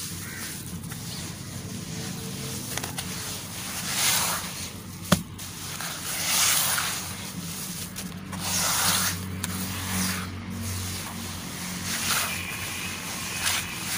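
Hands mixing and squeezing wet crumbled charcoal in a tub: repeated squishing, crumbling swells every second or two, with one sharp click about five seconds in.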